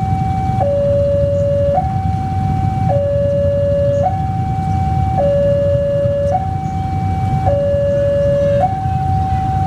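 Railway level-crossing warning alarm sounding an electronic hi-lo two-tone signal, each tone held about a second, warning of an approaching train. A steady low rumble runs underneath.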